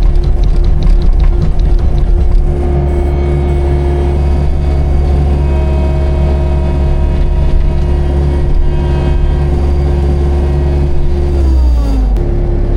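Manitou skid steer loader's engine running steadily as it drives. About eleven and a half seconds in, the engine speed drops in a short falling glide, then comes back to a steady pitch.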